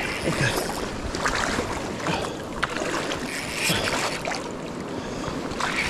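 Shallow river water sloshing and splashing close to the microphone, with cloth rustling against it and scattered light clicks, while a spinning reel is worked.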